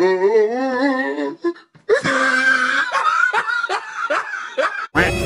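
Laughter: a long wavering laughing note in the first second, then after a short pause a run of quick ha-ha pulses, about three a second, cut off just before the end.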